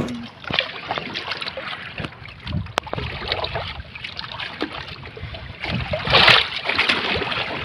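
Water splashing and dripping against a small boat as a fishing longline is hauled in by hand, with a louder splash about six seconds in.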